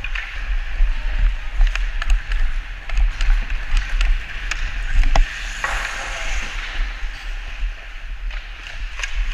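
Ice hockey play heard close up from a skater's helmet: skate blades scraping and hissing on the ice, with many sharp clacks of a stick on the puck and ice. There is a steady low rumble on the microphone. A louder crack comes a little past halfway, followed by a broader scraping hiss.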